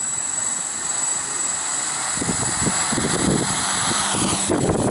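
Small electric quadcopter's motors and propellers running with a steady high-pitched whine and whir. About two seconds in, a louder, uneven low rumble joins.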